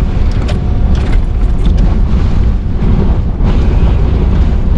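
Eyewall winds of Hurricane Ian, about 130 mph, buffeting a vehicle: a loud, unbroken rush heavy in the lows, with scattered sharp ticks.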